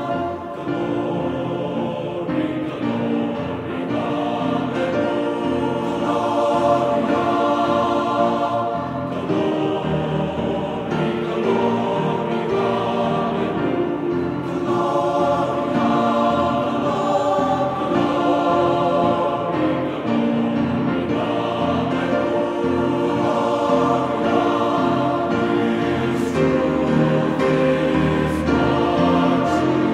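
Background music with sustained choral singing, held chords changing slowly.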